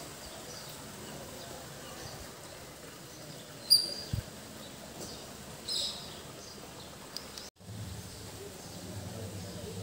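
Outdoor ambience with a few short, sharp bird chirps, the loudest about four seconds in and another about two seconds later. Near the end the sound drops out briefly and a low steady hum comes in.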